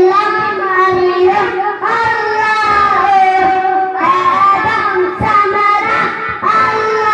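A young boy singing a devotional song in praise of the Prophet into a microphone, in long held notes that bend and glide between pitches.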